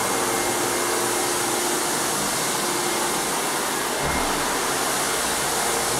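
Rotary floor buffer running steadily as it buffs a hardwood floor, its dust-extraction vacuum running with it. This is the scuffing pass that roughs up the old finish so a new coat will stick. A brief low thump comes about four seconds in.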